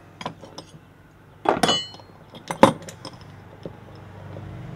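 Steel pieces of a bearing splitter and puller clinking against each other and the workbench as they are handled after pulling the bearing off: a few light clicks, a loud clink that rings briefly about a second and a half in, and another sharp clink a second later. A passing car's noise swells near the end.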